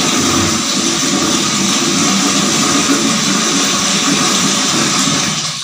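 Water running steadily into a plastic bucket, a loud even rush that cuts off suddenly at the end.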